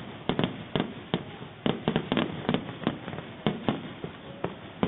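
Fireworks display: a dozen or more sharp bangs of exploding shells at irregular intervals, with a steady crackling hiss between them.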